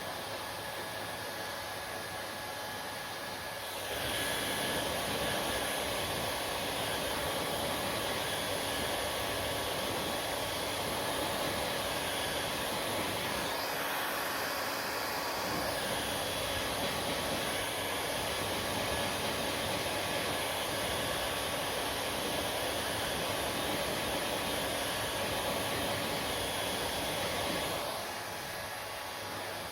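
Hair dryer blowing steadily. About four seconds in it gets louder and fuller, and near the end it drops back to the softer level.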